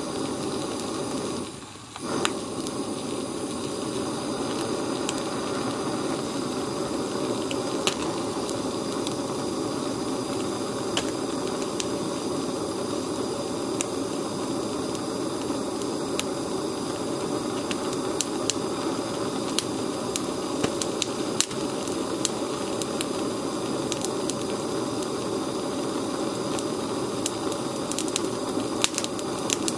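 Gas blow torch flame hissing steadily against an egg, its sound briefly dropping about a second and a half in and then coming back. Scattered small pops and crackles come from the egg as its contents boil and foam out through the scorched shell.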